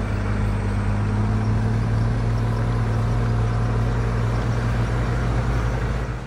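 Off-road 4x4's engine running steadily while driving, a low even hum with no revving, under a steady rushing noise; it cuts off sharply at the end.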